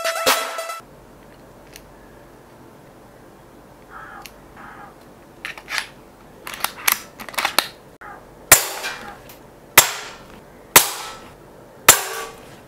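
.177 pre-charged pneumatic air rifle: a few clicks as the action is worked, then four sharp shots about a second apart, each with a short ringing tail.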